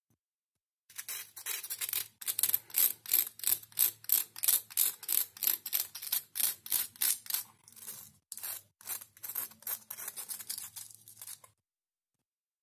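A small plastic spoon scraping and scooping loose glitter makeup in a shallow plastic jar, in a fast even run of gritty scrapes, about three a second, starting about a second in and stopping shortly before the end.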